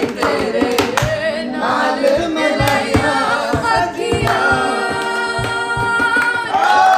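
Unaccompanied singing of a Punjabi/Urdu folk-style song, with long held notes, while people clap along to the beat.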